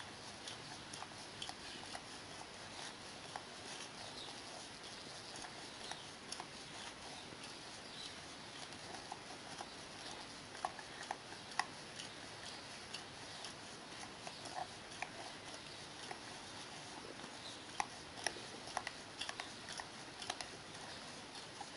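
West Highland White Terrier eating blueberry yoghurt: a steady run of small licking and smacking clicks, with a few louder smacks around the middle and near the end.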